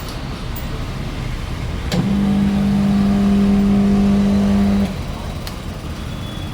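Ideal IDSR 210 high-pressure washer's motor switched on with a click about two seconds in, running with a steady hum for about three seconds, then cutting off abruptly. A steady low rumble sits underneath.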